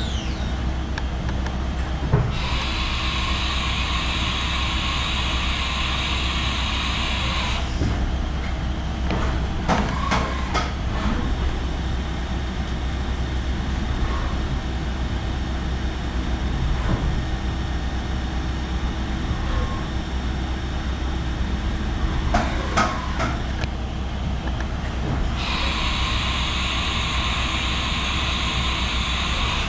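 Haas VF-4 CNC vertical mill running dry, with no coolant, under a steady low machine hum. The spindle winds down at the very start, and a few sharp clunks follow in the middle. Twice a loud high hiss and whine of the spindle at speed sets in: once about two seconds in for some five seconds, and again near the end.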